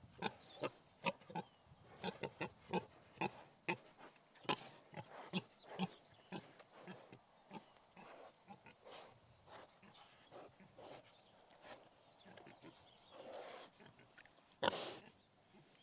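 Pigs grunting in quick short grunts, several a second at first, then more spread out, with one louder, longer call near the end.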